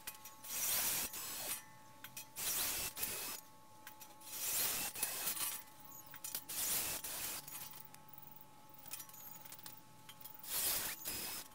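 Hand tool scraping on steel in slow repeated strokes, each under a second long, about one every two seconds.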